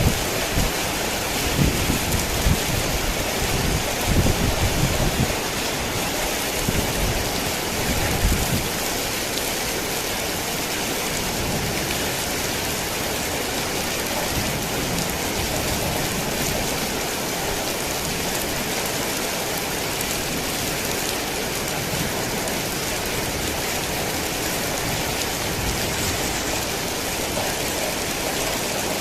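Heavy rain falling in a steady, dense hiss. Low thunder rumbles under it for the first eight seconds or so, then dies away, leaving only the rain.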